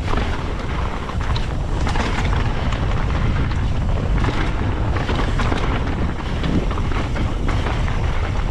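Mountain bike descending steep, loose, rocky ground: tyres crunching and skittering over gravel and rock, with frequent knocks and rattles from the bike. Heavy wind buffeting on the microphone adds a steady low roar throughout.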